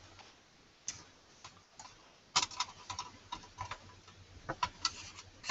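Irregular light clicks and ticks of small metal parts being handled on a fanless mini PC's aluminium case, as a small screw on its back I/O panel is worked loose by hand.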